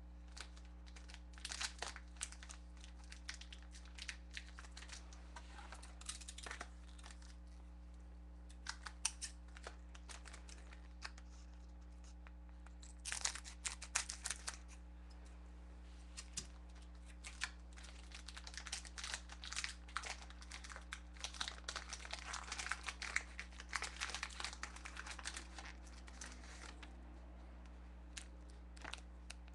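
A sealed plastic trading-card pack being cut open with scissors about halfway through, then its plastic wrapper crinkling and rustling as it is pulled apart and the cards are taken out, with scattered small clicks. A faint steady hum runs underneath.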